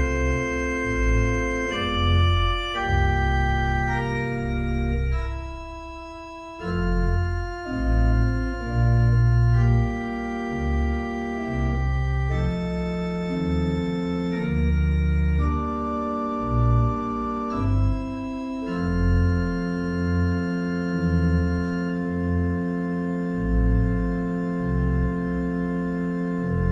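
Church pipe organ playing a slow prelude in held chords over low pedal notes, softening briefly about six seconds in.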